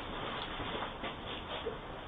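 Steady hiss and background ambience from a Ring doorbell camera's microphone, with a few faint small ticks.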